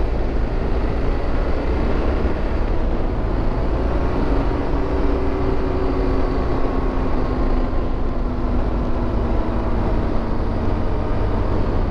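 BMW R1200 GS flat-twin motorcycle riding along firm beach sand: a steady wind rush on the microphone over the engine's drone. The engine note eases down slowly partway through.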